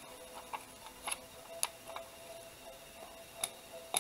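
A few light clicks and taps, about five spread over the few seconds, as small craft pieces (pearl beads and a wooden sequin) are picked up and handled on the tabletop.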